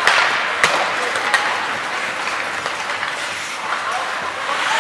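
Ice hockey skate blades scraping and carving the ice as a steady hiss, with a few sharp knocks in the first second and a half.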